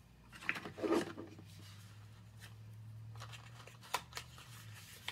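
Quiet room sound: a low steady hum from about half a second in until near the end, with a brief soft rustle around a second in and a few faint small clicks later on.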